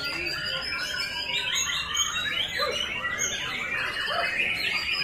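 White-rumped shama (murai batu), a caged songbird, in full song: a fast, varied stream of short whistles and chirps that rise and fall in pitch.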